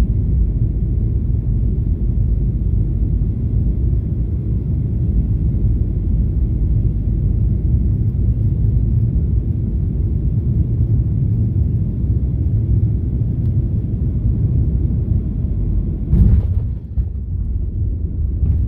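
Boeing 737 cabin noise on final approach: a steady low rumble of engines and airflow. About sixteen seconds in, a sudden louder jolt marks a firm touchdown on the wet runway.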